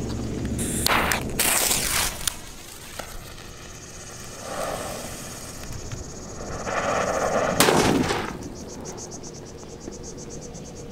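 Brazilian 'mamadeira' firecracker: the lit fuse hisses and sputters, then the charge goes off with one sharp bang about three-quarters of the way through.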